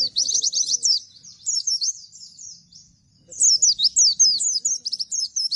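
Caged white-eye (pleci) singing its rapid 'nembak' song: fast runs of sharp, high, down-slurred chirps. A loud burst opens, a fainter run follows, and after a short break a longer loud burst runs almost to the end.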